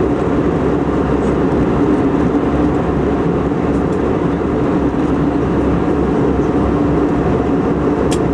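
Steady jet airliner cabin noise heard from inside the cabin in flight: the even drone of engines and rushing air, with a steady low hum running through it.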